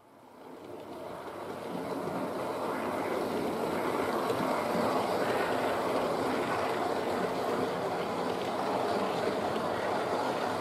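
Hornby OO gauge model train running along the track, its wheels rolling on the rails in a steady rushing rumble. The sound grows over the first couple of seconds as the coaches come past, then holds steady.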